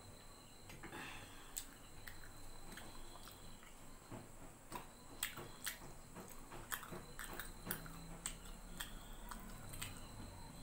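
A person chewing and eating food by hand, with irregularly spaced sharp mouth clicks.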